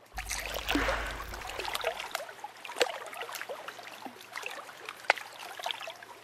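Seawater lapping and trickling against a shoreline rock, with small splashes and drips as a sea lion swims at the surface beside it. A low rumble runs through the first two seconds.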